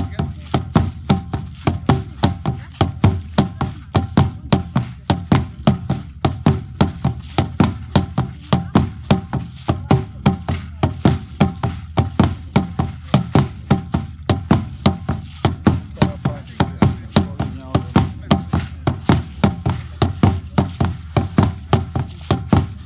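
A large drum beaten in a steady, fast, even rhythm of about three to four strokes a second, with a group of voices singing or chanting along, accompanying a traditional dance.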